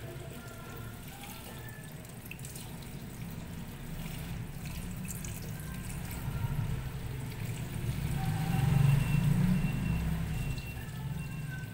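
Kitchen tap running, the stream splashing over hands and into a plastic colander as small pieces of food are rinsed. It swells louder about eight seconds in.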